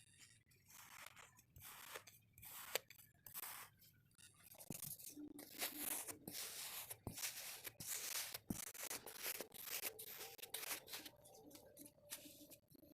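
Kinetic sand being worked by hand or tool: crisp, irregular crunching and scraping strokes, growing denser about five seconds in.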